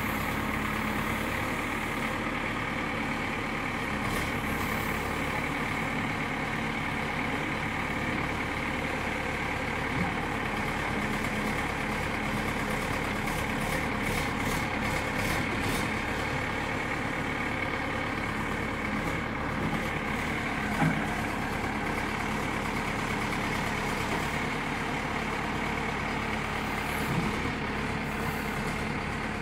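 JCB 3DX backhoe loader's diesel engine running steadily while the backhoe is worked on a test run after repair, with a few short knocks, the loudest about two-thirds of the way through.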